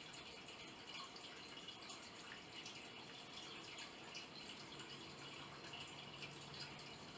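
Faint, soft sticky dabbing and rubbing of fingertips spreading a cream face mask over the skin, heard as small irregular crackles over quiet room tone. A faint low hum comes in about five seconds in.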